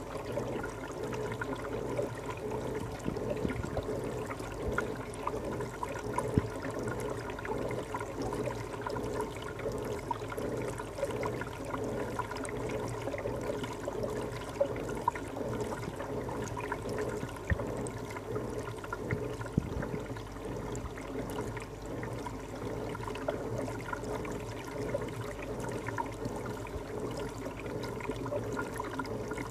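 Water running steadily through a reef aquarium's circulation, with a steady low hum and small scattered ticks over it.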